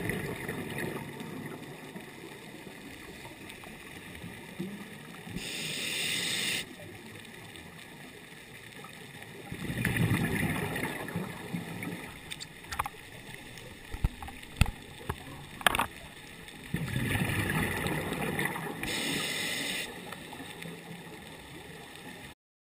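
Scuba diver breathing through a regulator, heard underwater: hissing inhalations and rushing, gurgling bursts of exhaled bubbles a few times, with a few sharp clicks in between. The sound cuts off suddenly near the end.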